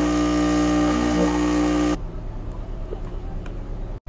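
Espresso machine's pump humming steadily while a shot pours. It cuts off abruptly about halfway through, leaving a quieter outdoor background hiss.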